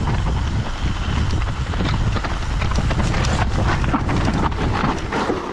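Mountain bike going down a steep, rough trail: tyres rumbling and the bike rattling and clattering over the ground, with wind buffeting the microphone.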